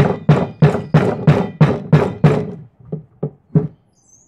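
Rubber mallet hammering a metal shaft into a hole in a wooden block: quick, even blows, about three a second, then three lighter taps near the end before it stops. The shaft is being driven into the wood.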